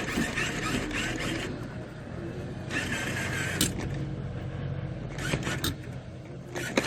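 Claw machine running: a steady mechanical hum of the crane as the claw is moved, with a few sharp clicks near the middle and end.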